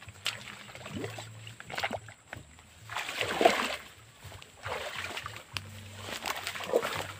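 Feet wading through a shallow, weedy ditch: several sloshing, splashing steps in the water, the loudest about three seconds in.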